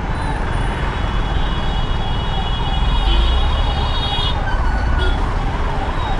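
Ambulance siren wailing, its pitch rising and falling about twice a second, over a low steady rumble of road traffic. A steady high tone sounds over it for the first four seconds or so.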